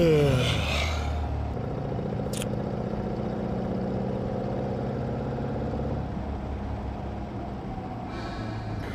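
A steady low engine-like hum, with a brief hiss about two and a half seconds in.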